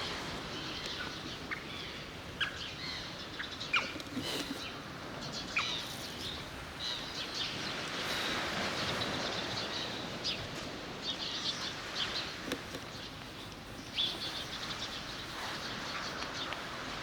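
Small birds chirping, with short, high calls scattered through, over a steady background hiss.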